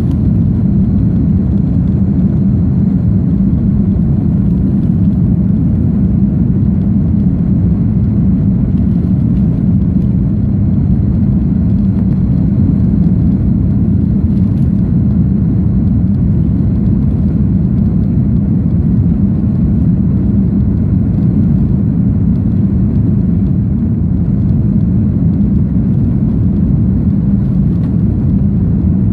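Airbus A310 jet engines and airflow as heard inside the cabin during takeoff or climb: a loud, steady low rumble with a faint high whine above it.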